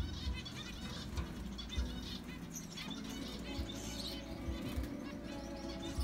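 Zebra finches calling in their cage: many short, rapid chirps in quick runs throughout, with a few dull thumps mixed in.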